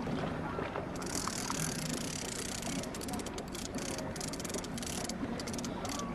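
A fishing reel being cranked in rapid clicks as a hooked bluefish is reeled in, over the steady running of the boat's engine.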